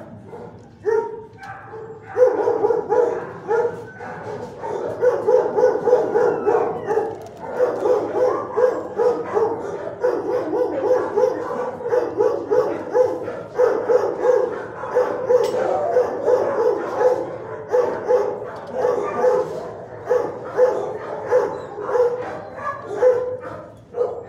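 Shelter dogs barking repeatedly, several barks a second at a steady pitch, starting about two seconds in and keeping on without a break.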